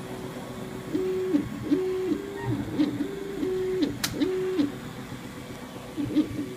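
3D printer's stepper motors whining through a series of short moves, each one ramping up to a steady pitch, holding for about half a second and ramping down, with small ticks between. A sharp click comes about four seconds in, and the moves thin out to a quieter steady hum near the end.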